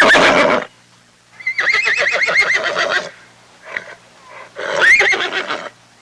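Horse whinnying: a call ending just after the start, then a long quavering whinny and a shorter one near the end.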